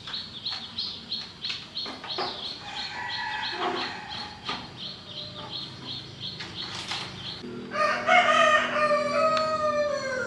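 A rooster crows near the end, one long call falling slightly in pitch and the loudest sound. Before it a small bird chirps over and over, about three times a second, with scattered light clicks and knocks.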